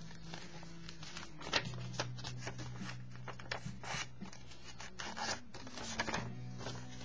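Paper rustling and rubbing in a string of short, irregular scrapes as sheets are handled and smoothed down on a journal page, with a few louder rustles, one about a second and a half in and another about four seconds in.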